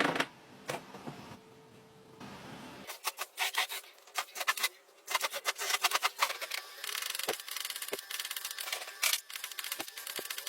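Repeated rubbing and scraping strokes with sharp clicks, thickening into a steadier rasping about two-thirds of the way in.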